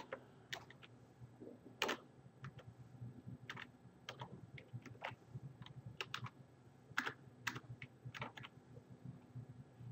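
Computer keyboard keys tapped one at a time with uneven gaps while a password is typed in.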